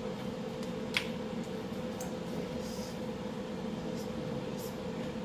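Seasoning being shaken from a spice shaker over chicken in a glass baking dish: a sharp knock about a second in, then a few faint ticks and a short soft hiss of falling seasoning. A steady background hum runs underneath.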